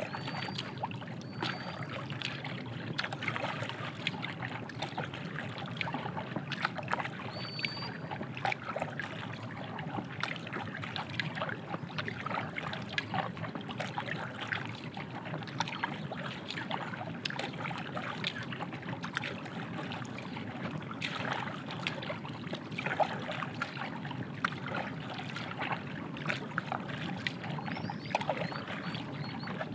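A packraft being paddled along a calm river: paddle blades dipping and splashing in the water, with water trickling and dripping between the strokes in an irregular stream of small splashes.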